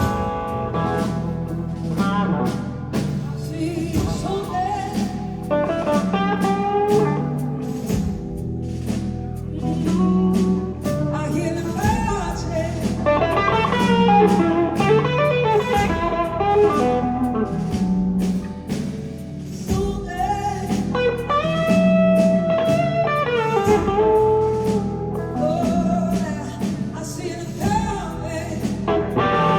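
Live blues-rock band playing, with electric guitar over steady bass and drums, and a gliding lead melody on top.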